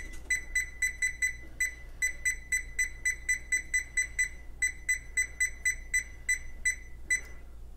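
Kitchen oven's timer keypad beeping as the timer is set: a run of short, high beeps, about three or four a second, broken by a few brief pauses.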